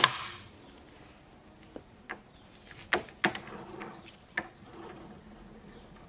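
A handful of sharp metallic clicks and clunks from a bare Toyota W58 five-speed manual gear train being handled on a bench stand. The loudest clunk comes right at the start, with lighter clicks about two, three and four seconds in.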